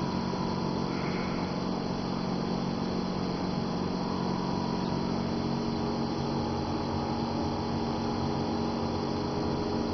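Steady background hum and hiss with no other events: room tone, perhaps from an appliance or fan.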